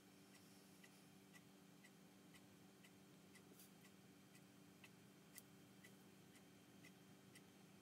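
Faint, regular ticking, about two ticks a second, over a low steady hum.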